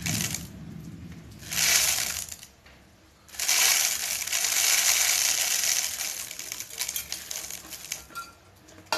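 Rice grains poured from a mano, a small traditional measuring pot, into a plastic one-litre bottle, giving a dry rattling hiss. It comes in three pours: a brief one at the start, another about a second and a half in, and a long steady one from about three to seven and a half seconds in. It then thins to a few scattered grains dropping.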